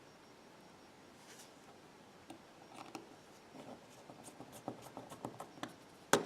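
Light clicks and taps of small precision tools and parts being handled on an iPhone 6 during disassembly, with a run of quick ticks in the second half and one sharper click near the end.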